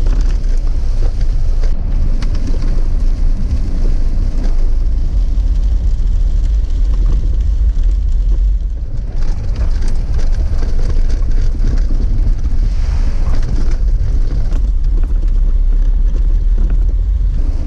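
Jeep Wrangler driving on a wet dirt road: a steady low rumble of engine and tyres, with scattered small knocks and rattles.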